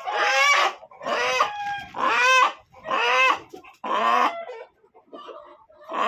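Desi chickens calling: a run of loud, short calls, about one a second, turning quieter after about four seconds.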